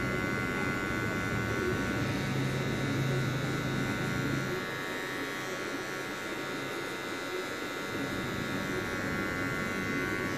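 Wahl electric hair clipper buzzing steadily as it makes a light touch-up pass along the side of the head, its blade lever set to zero. A lower hum under the buzz stops a little before halfway.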